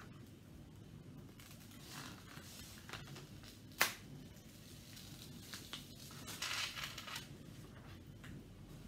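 Rustling and crinkling of a plastic-covered diamond painting canvas being handled and smoothed flat on a table by hand, with one sharp click a little before the middle and a longer crinkling rustle about two-thirds of the way through.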